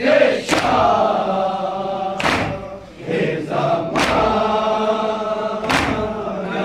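A group of men chanting a Shia mourning latmiyah together, with four loud unison chest-beats (matam) about one every 1.7 seconds. The chanting dips briefly about three seconds in.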